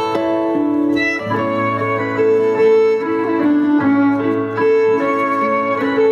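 Instrumental dance music: a melody of held notes over a low bass that comes in about a second in.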